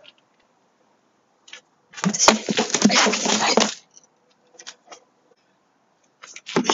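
A cane striking plastic traffic cones, with the cones clattering and skidding over concrete, in a dense run of knocks and scraping lasting under two seconds, about two seconds in. A few light taps follow, and another burst of hits starts just at the end.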